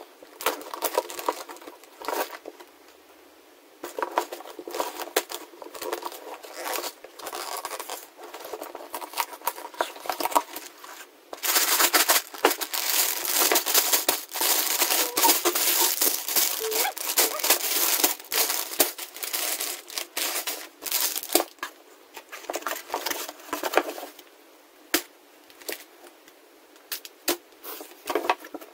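A cardboard LEGO box being opened and its plastic bags of bricks crinkling and rattling as they are handled, with many small sharp clicks. The crinkling is densest and loudest for about twelve seconds in the middle.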